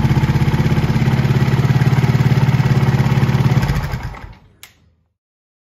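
Single-cylinder four-stroke engine of a 2018 Montesa 4RT 300RR trials bike running steadily at idle with a fast, even pulse. It dies away about four seconds in, with a short click just after.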